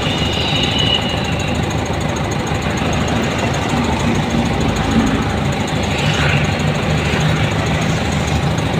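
A vehicle engine running steadily, with road noise, heard from on board.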